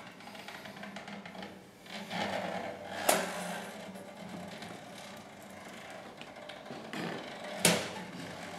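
Two combined guitars played with an extended technique: a handheld object is rubbed and scraped against the strings and wooden body, giving a noisy scraping texture broken by two sharp snaps, about three seconds in and near the end.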